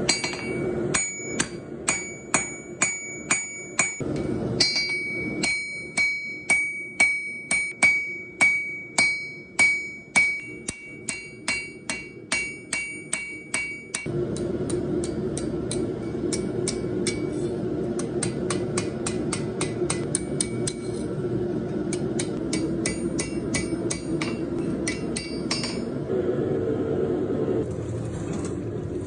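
Blacksmith's hammer striking the file steel on an anvil, about two blows a second, each blow ringing out. About fourteen seconds in, a steady rushing noise sets in and the hammering goes on lighter and faster beneath it.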